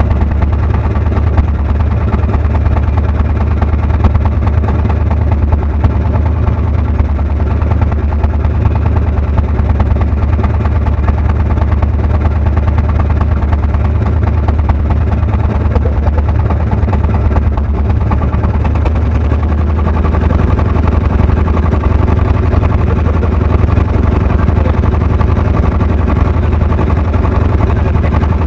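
An engine running steadily with a low, even drone. Its lowest note shifts slightly about twenty seconds in.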